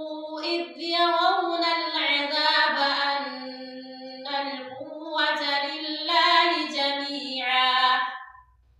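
A woman's solo Quran recitation, chanted melodically with long held notes in phrases and short breaks, stopping shortly before the end.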